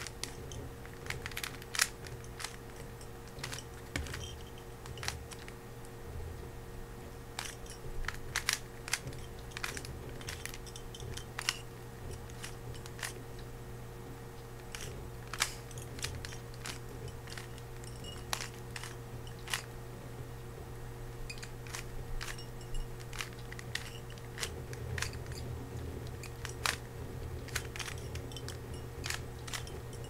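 Plastic speed cube being turned fast in the hands: quick, irregular clacks and clicks as its layers are twisted. A steady low hum runs underneath.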